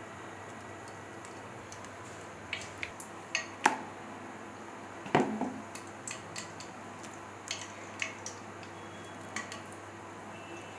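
Scattered light clicks and clinks against a mixing bowl as raw banana slices are dipped and turned by hand in bajji batter, with two louder knocks about three and a half and five seconds in, over a steady faint hiss.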